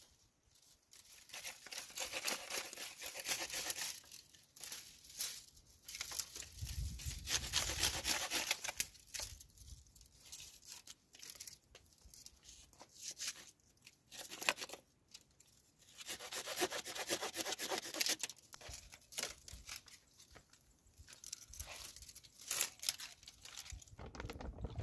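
Hand pruning saw cutting through dry branches: runs of quick back-and-forth rasping strokes lasting a few seconds each, with short pauses between.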